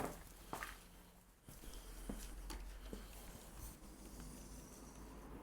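A few light clicks and taps of hands and tools handling parts, with a low steady hum that starts about a second and a half in.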